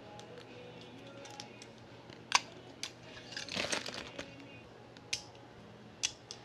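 Handling noises from a Beyblade top and its packaging: a few sharp clicks, the loudest about two seconds in, and a short rustle in the middle.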